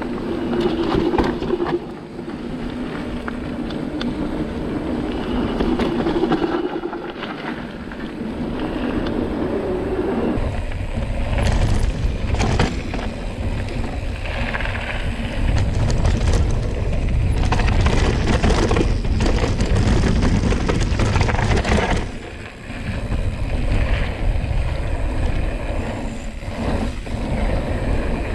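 Cube Stereo 150 TM full-suspension mountain bike riding down a dirt trail: tyres rolling over the ground, with the chain and frame clattering in sharp knocks over bumps, under a deep rushing rumble. The rumble grows stronger from about ten seconds in and drops off briefly about three-quarters of the way through.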